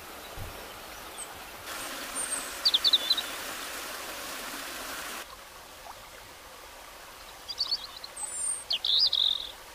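Small waterfall and stream water running over rocks, louder from about two seconds in until about five seconds, with quick high bird chirps about three seconds in and again in several short runs near the end, the chirps standing out as the loudest sounds.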